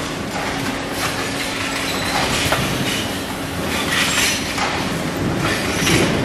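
Automatic square ceiling diffuser assembly line running: the conveyor rattles and clatters as it carries diffuser panels along, with sharp metallic clanks now and then over a steady machine hum.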